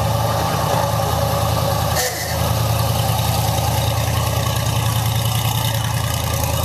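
Engine of a hot-rodded early-1960s Ford Falcon idling loud and close, a steady idle with a brief dip about two seconds in.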